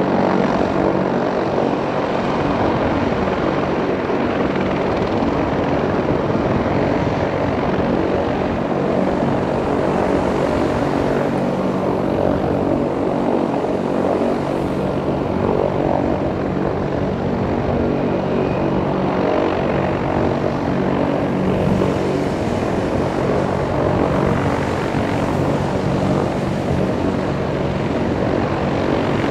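Boeing AH-64 Apache attack helicopter running on the runway with its rotors turning: a steady rotor and twin-turbine engine sound that holds at one level throughout.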